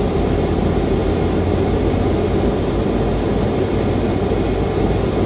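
Steady low rumble of a vehicle being driven, its engine and road noise running evenly.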